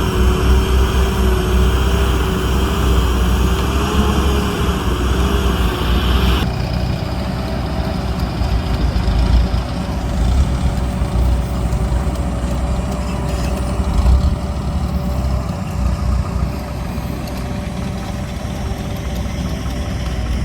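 Engine of heavy construction machinery running steadily with a low rumble. About a third of the way in, the sound changes abruptly: a wavering engine tone gives way to a steadier running note with a thin, even whine.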